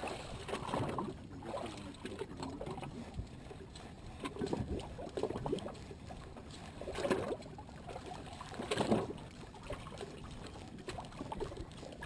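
Sea water lapping and sloshing against the hull of a drifting boat, in irregular surges a couple of seconds apart.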